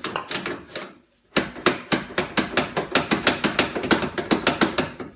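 Rapid, even clicking, about seven clicks a second, from the freshly greased door mechanism of a 1989 Toyota pickup being worked, with a brief pause about a second in.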